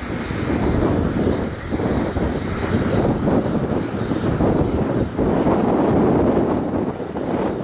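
Test drone in flight carrying a full payload: continuous propeller and motor noise that swells and dips slightly, with brief dips about two seconds in and again about five seconds in.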